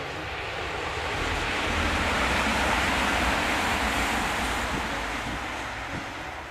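Diesel passenger train passing close by on the embankment: a broad rushing rumble that swells to a peak in the middle and fades as the train draws away, with wind buffeting the microphone.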